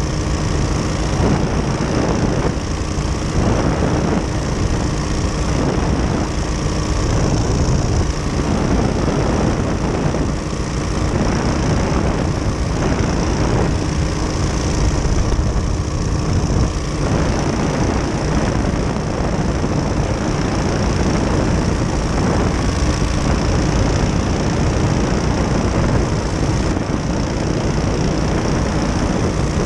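Ultralight powered parachute's engine and pusher propeller running steadily in flight.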